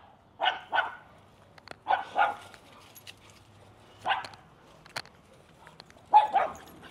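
Dogs barking: about seven short barks in four groups, most of them doubled, with the loudest pair near the end.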